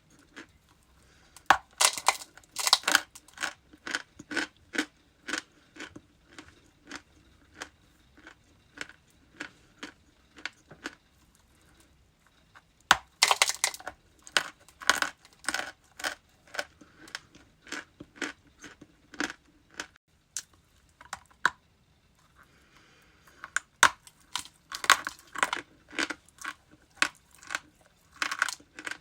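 Ice being bitten and chewed close to the microphone. Three loud crunching bites come about ten seconds apart, each followed by a run of smaller crunches as the pieces are chewed down.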